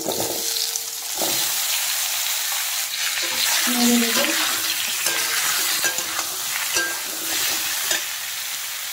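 Potato wedges and ridge gourd pieces sizzling in hot oil in a kadai, stirred with a metal spatula that scrapes the pan in repeated strokes.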